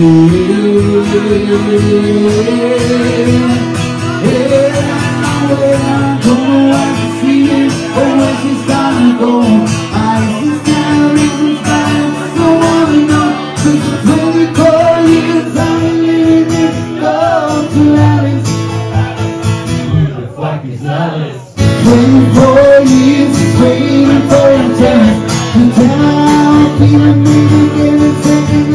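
Live acoustic guitar strummed under a man singing into a microphone. The music drops away briefly about twenty seconds in, then comes back at full level.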